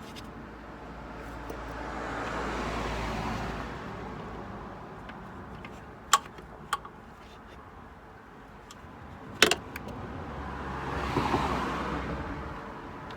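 Two vehicles passing by, each a swell of road noise that rises and fades over a couple of seconds. Between them come three sharp metallic clinks of hand tools working on the alternator belt's tensioner idler.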